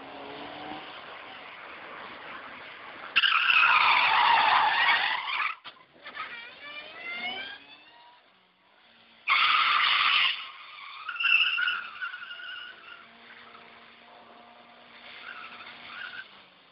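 Sedan being driven hard with its tyres skidding and squealing, and the engine revving in rising sweeps. The two loudest bursts of tyre noise come a few seconds in and again about nine seconds in.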